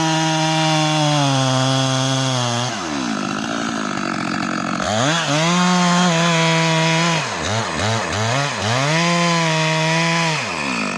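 Stihl MS 462 two-stroke chainsaw with a 90 cm bar cutting a log at full throttle, its pitch sagging a little under load. About three seconds in the revs fall back toward idle; they climb again about five seconds in, blip up and down several times around seven to eight seconds, run flat out again and fall off near the end.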